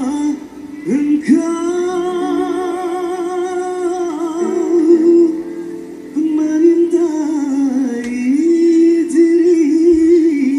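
A man singing a pop ballad with live band accompaniment, holding long, wavering notes: one long note from about a second in, a short break near the middle, then another sustained phrase.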